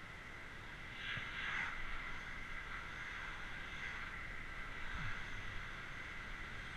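Bicycle riding along a wet tarmac path: a steady hiss of tyres on the wet surface and wind on the camera, briefly louder about a second in.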